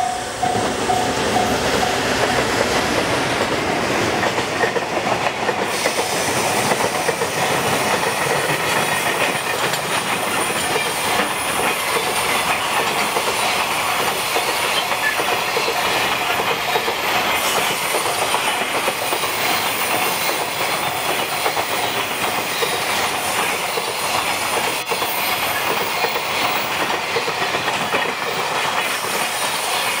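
Freight train container wagons rolling past close by: a steady, loud rumble and clatter of steel wheels on the rails. A level-crossing warning bell ringing in even pulses is heard at the start and is soon drowned out by the passing wagons.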